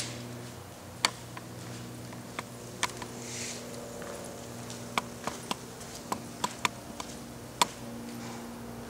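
Airless line striper being rolled across a concrete floor, its wheels and frame giving a dozen or so sharp clicks and rattles at irregular intervals over a steady low hum.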